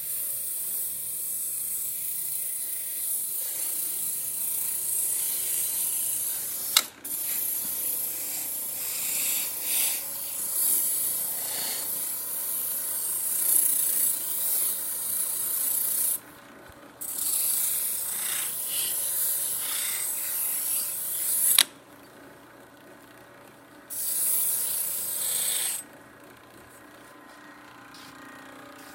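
Powered wire brush on an old shop machine scrubbing brittle metal pieces: a steady, harsh scratching hiss. It cuts off suddenly three times as the work is lifted away, and there are two sharp clicks, about a quarter and three quarters of the way through.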